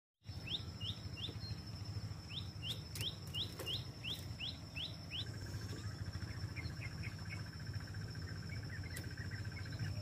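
Munias (emprit) chirping: a quick run of short rising chirps, about three a second, then fainter scattered chirps for the second half, over a low steady rumble.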